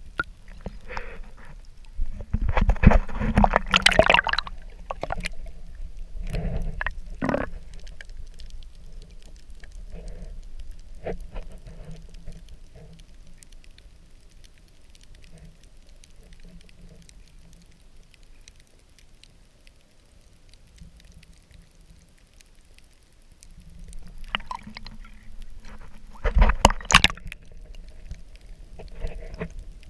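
Muffled underwater sound picked up by a camera held below the water's surface: water moving and sloshing around it, with loud bursts of rushing noise about two to four seconds in and again near the end.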